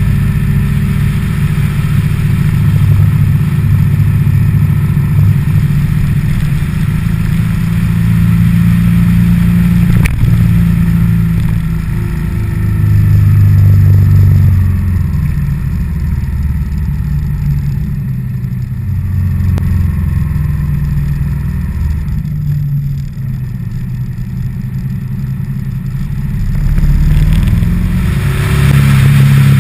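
Motorcycle engine running on the move, its pitch rising and falling with throttle and gear changes. It eases off for several seconds past the middle, then picks up again near the end.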